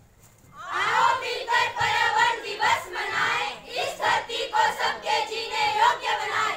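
A group of schoolchildren singing together in unison, starting about half a second in after a short pause, with held notes.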